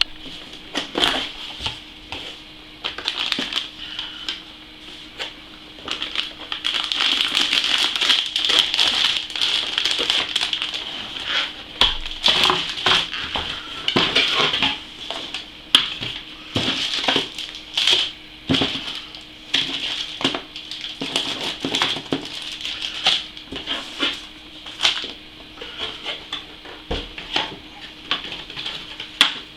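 Cardboard boxes and plastic packaging being opened and handled: crinkling and crackling, loudest a few seconds in, with many small knocks and taps throughout. A faint steady hum sits underneath.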